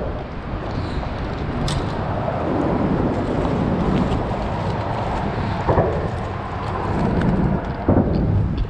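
Steady rumble of traffic on the bridge overhead, swelling twice as vehicles pass. A few short knocks and rustles come from freshly caught jack being handled and dropped into a plastic bag.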